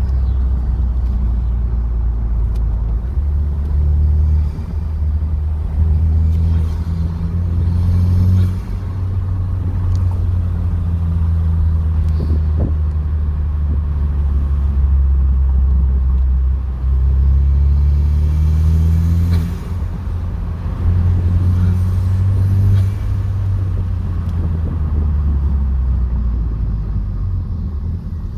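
2012 Buick Regal GS's turbocharged 2.0-litre four-cylinder engine and exhaust droning while driving, its pitch climbing several times as the car accelerates and then easing off.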